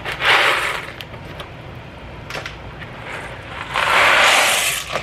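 Dry boxed macaroni pasta poured from a cardboard box into a pot of boiling water: a short rattling rush just after the start, then a louder, longer one of about a second near the end.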